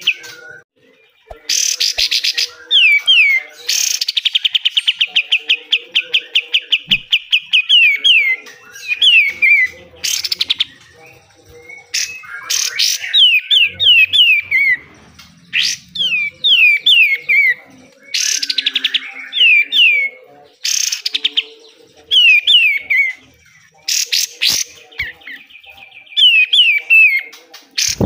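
A kapas tembak (katem) songbird singing hard in repeated phrases with short pauses. Fast, high trills alternate with runs of quick falling whistles and loud harsh rasping bursts, the aggressive 'besetan' style.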